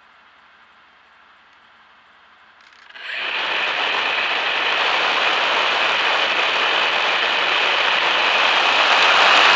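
Electric motor and propeller of a HobbyZone Super Cub RC plane starting about three seconds in and running at a loud, steady whirr that grows gradually louder as the throttle is opened.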